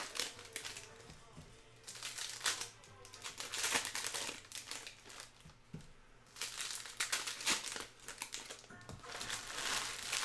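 Plastic trading-card pack wrappers crinkling in several bursts as they are handled.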